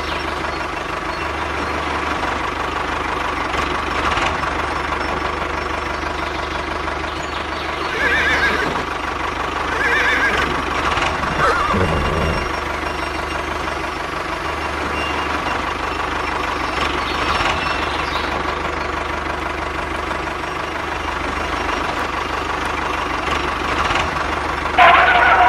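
Steady tractor engine drone from the toy tractors, with a horse whinnying twice, about eight and ten seconds in. A louder tonal sound breaks in just before the end.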